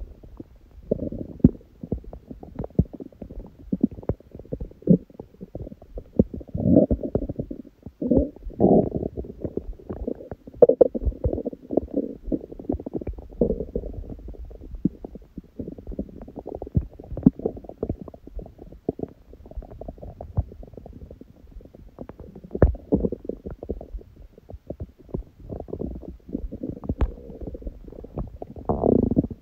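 An empty, hungry stomach growling: low rumbles mixed with a steady stream of irregular small pops and bubbling clicks. It swells louder a few times, around seven to eleven seconds in and again near the end.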